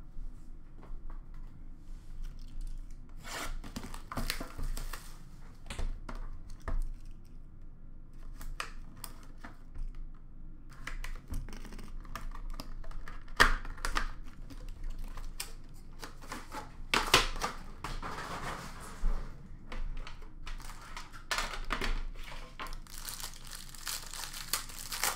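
Hands tearing open the packaging of an Upper Deck Premier hockey card box and crinkling its wrapping, in irregular rustles and crackles with a few sharper tears, the loudest about halfway through.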